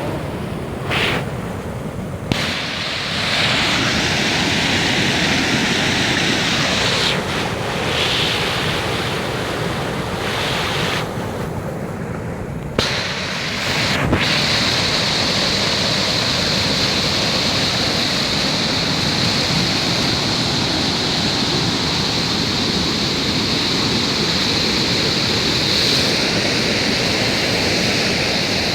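A river in flood, its water rushing loudly and steadily. The high hiss dips briefly a few times in the first quarter, then holds even.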